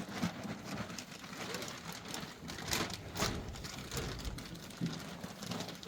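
Irregular rustling with scattered light knocks and clatters as cattle feed is handled in a cattle shed.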